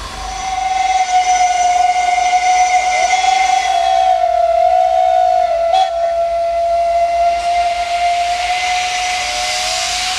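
Steam locomotive whistle sounding one long, steady blast of about ten seconds on a single pitch, with a hiss of escaping steam swelling near the end.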